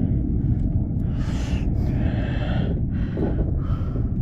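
A person breathing hard, about four heavy breaths, over a steady low rumble.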